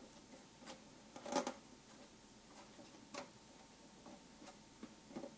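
Faint clicks and taps of small plastic parts being handled and fitted back together. The loudest clack comes about a second and a half in, and a few lighter ticks follow.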